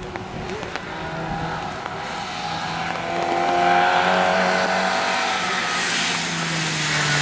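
Historic rally car engine held at high revs, swelling louder as the car approaches along the stage. As it draws close near the end, the hiss of its tyres on the wet road rises over the engine.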